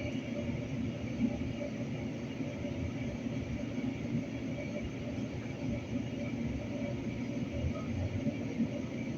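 Light rail train running, a steady rumble with a faint hum over it.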